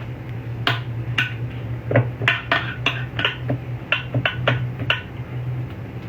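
Kitchen utensils clicking and tapping against a dish, a sharp tap every third to half second with short pauses, over a steady low hum.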